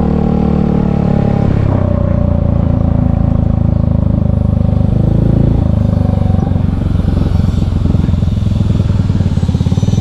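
Motor scooter's small engine running steadily as it is ridden along a street, heard from the rider's seat.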